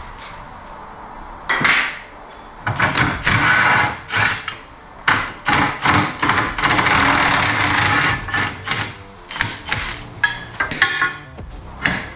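Cordless impact wrench hammering in repeated bursts, the longest lasting about two seconds, working a stuck wishbone bolt loose on a car's front suspension.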